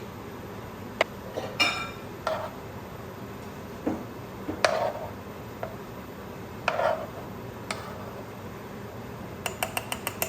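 Kitchen dishes and utensils clinking and knocking against each other during food prep: scattered separate knocks, one clink ringing briefly with a glassy tone, and a quick run of small clicks near the end.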